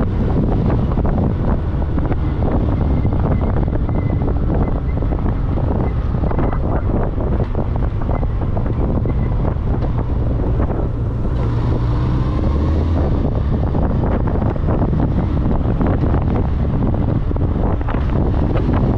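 Wind buffeting the microphone of a moving ride: a steady loud rush over a deep rumble of road and vehicle noise. The hiss brightens briefly a little past the middle.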